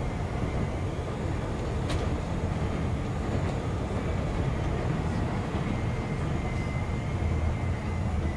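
CTA Brown Line rapid-transit train heard from inside the car, running on elevated track: a steady rumble of wheels on rail, with a thin high whine held above it and one sharp click about two seconds in. The train is slowing as it pulls into a station.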